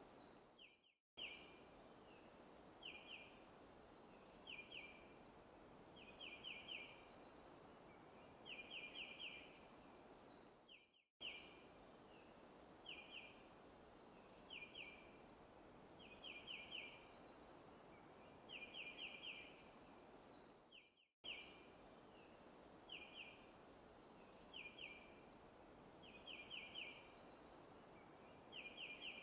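Faint forest ambience loop: a bird chirping in short quick groups of one to four notes about every two seconds over a soft steady hiss. The track cuts out briefly and restarts about every ten seconds.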